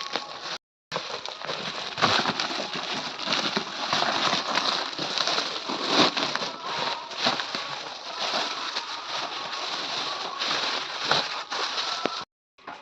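Plastic packaging being handled, crinkling and rustling with many sharp crackles. The sound drops out completely twice, briefly: once near the start and once just before the end.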